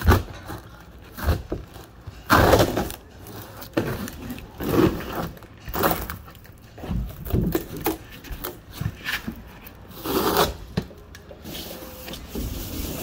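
Thin lauan plywood roof decking being pulled up and torn away from the motorhome roof's glued-on styrofoam core: a string of irregular ripping and cracking sounds, the loudest near the start and about two and a half seconds in.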